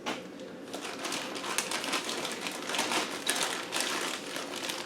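Rummaging through a transfer-box rebuild kit for an O-ring: small parts and packets rustling and clicking irregularly.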